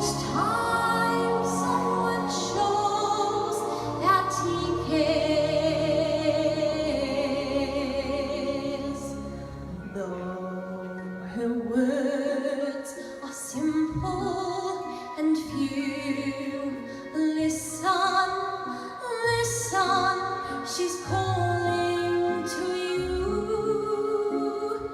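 A young girl's solo singing voice, holding long notes with vibrato in a classical, lullaby-like style, over an instrumental backing accompaniment.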